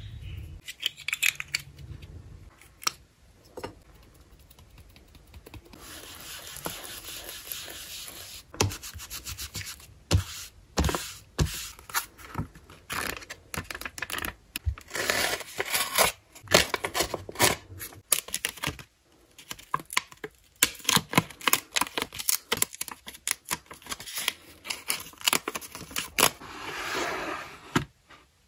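Close-miked handling of craft supplies: taps, clicks and rubbing on a clear plastic storage box and a foam ink-blending tool. About halfway through, the pages of a small paper memo pad are riffled with a crisp rustle. Near the end, a plastic drawer slides open.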